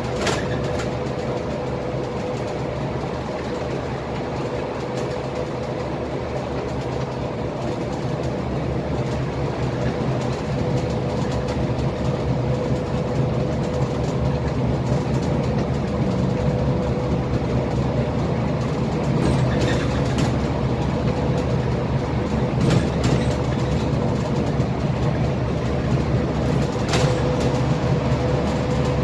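Interior noise of a Scania K320IA bus cruising on a highway: a steady low engine and road rumble with a constant tone above it. A few faint rattles come about two-thirds of the way through and near the end.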